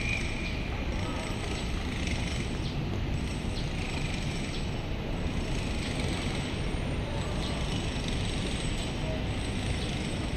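Steady outdoor noise, heaviest at the low end, with faint distant shouts from footballers on the pitch.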